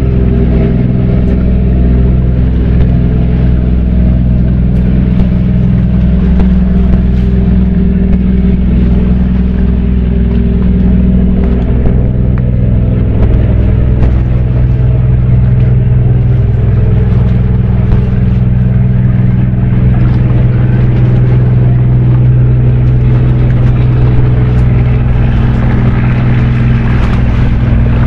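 A loud, steady low engine drone with a constant hum, its note shifting slightly about halfway through.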